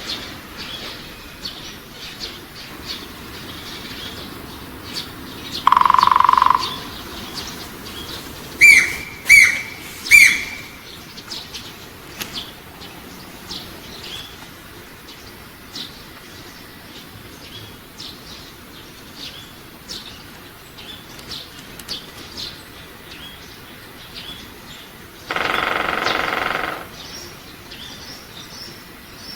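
Wild birds calling, with many small high chirps and three loud, sharp downward-sweeping calls about nine to ten seconds in. A loud steady tone about six seconds in and a harsher drawn-out sound of about a second and a half near the end stand out among them.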